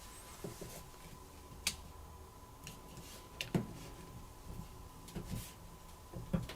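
Faint, scattered small clicks and taps of a Samsung Galaxy Z Flip's cover and parts being handled and fitted back together during reassembly, over a faint steady tone.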